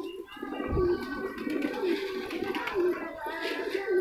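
A flock of domestic pigeons cooing, many overlapping coos, with one low thump a little under a second in.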